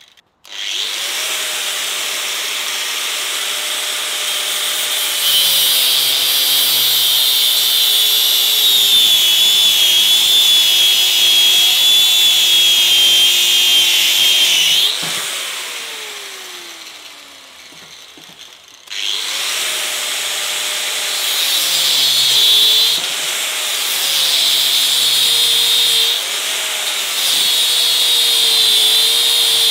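Angle grinder with a thin cutting disc starting up and cutting into the Barronium-armoured bar of a Litelok X1 Moto D-lock. The motor's pitch drops under load and a high screech rises as the disc bites into the grinder-resistant armour. About 15 seconds in it is switched off and winds down, then about 19 seconds in it starts again and resumes the cut.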